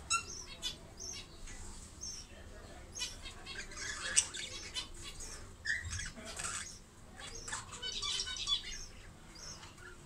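A pair of budgerigars chattering while courting: a run of quick, high twittering chirps and clicks, busiest around four and eight seconds in.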